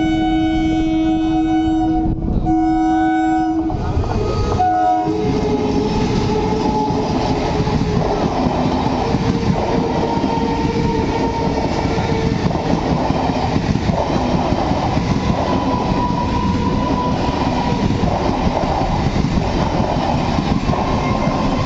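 Horn of a BEML stainless-steel electric multiple unit train sounding two long blasts and a short toot. It then rushes past at speed with a loud rumble and rhythmic wheel clatter, about one beat a second.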